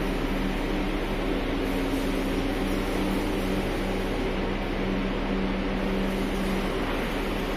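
Copper wire granulator running empty, its electric motors and blower making a steady mechanical hum with a few low tones and no crushing impacts.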